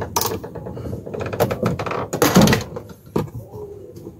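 A door fitted with a solenoid door lock is handled and tried, with a run of clicks and knocks. There is a louder clattering thunk about two seconds in and another sharp knock near three seconds.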